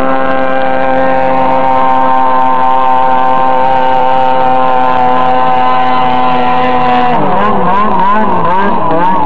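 Snowmobile engine running loud at steady high revs as the sled speeds across the snow. About seven seconds in, the pitch starts wavering up and down.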